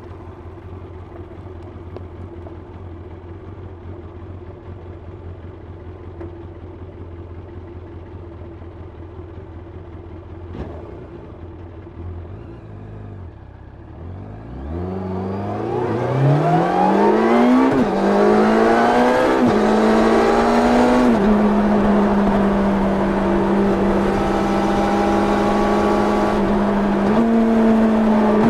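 A 1990 Yamaha FZR 600's inline-four on its stock exhaust, heard from onboard, runs at low steady revs for about fourteen seconds. It then pulls away hard, revs climbing in rising sweeps with several quick upshifts. It settles at a steady higher pitch with wind rushing past, the revs lifting and easing slightly near the end.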